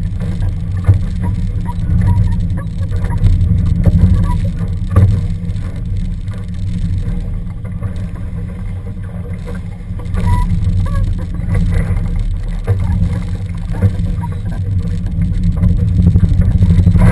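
Wind and water rushing past a Laser sailing dinghy under way, heard as a heavy, steady low rumble on the boat-mounted camera, with a few faint knocks.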